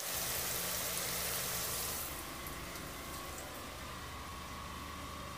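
Sliced onions frying in oil in an aluminium pot, a loud sizzle for about two seconds that then drops to a quieter steady hiss.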